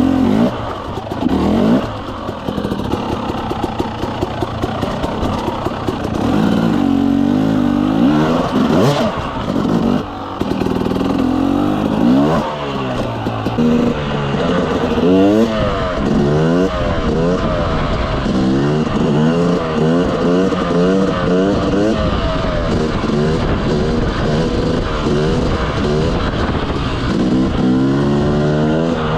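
Motorcycle engine revving hard, its pitch rising and falling over and over, with quick throttle bursts about once a second through the middle part, as when riding wheelies.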